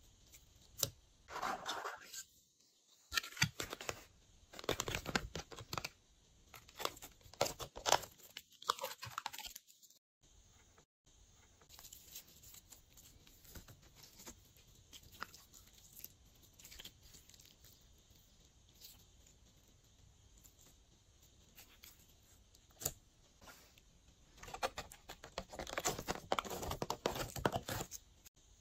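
Glossy slime being mixed, giving sticky, crackly clicks and pops in irregular bursts. They are busiest in the first ten seconds and again near the end, sparser in between.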